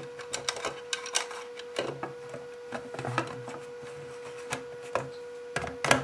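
Plastic clicks and knocks as a white Banshee fire alarm sounder is twisted back onto its mounting base, irregular at first, with the loudest knocks near the end as it seats.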